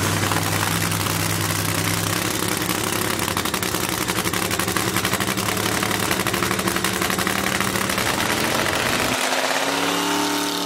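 Car engine idling with a steady low note. Near the end, a vehicle's engine note rises and then falls in pitch.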